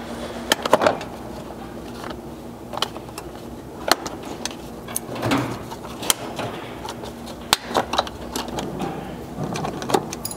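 Plastic push-in retainer clips snapping as their centres are pushed in and they are popped out of a plastic air intake panel, with a string of sharp clicks a second or two apart and some rattling of hard plastic being handled.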